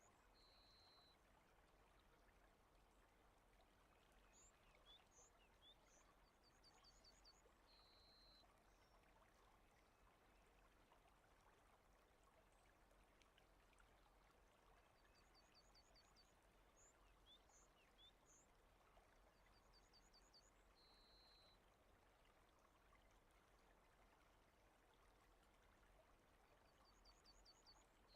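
Very faint rain ambience, an even hiss, with a small bird singing short high phrases of quick notes several times.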